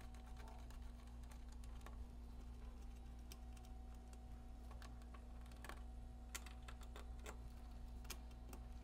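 Faint, scattered small clicks of metal nuts and washers being turned off threaded terminal studs by hand, with the wire leads being handled, over a low steady hum.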